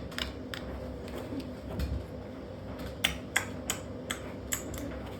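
Irregular sharp clicks and taps of washing-machine parts being handled and worked at during dismantling, about a dozen, the loudest a little past halfway.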